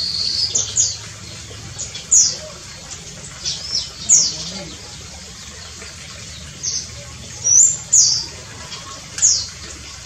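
Bird calling with short, high notes that slide downward, about ten of them scattered through, some in quick pairs.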